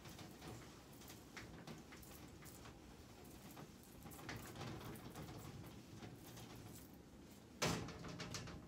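Clothes being handled and folded, with soft rustling and small clicks of things being moved, then one sharp knock near the end.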